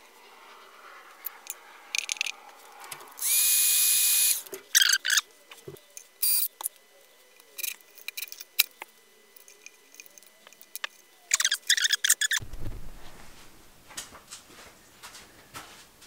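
DeWalt cordless impact driver driving screws into a plywood board: one steady run of about a second, then several shorter bursts.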